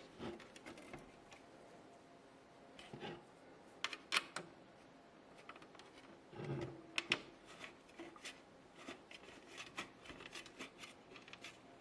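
Faint, irregular small clicks, taps and scrapes of hardware being handled: thumb screws fitted to fasten a hard drive into a computer case's metal drive cage. The louder clicks come about four seconds in and again around six to seven seconds.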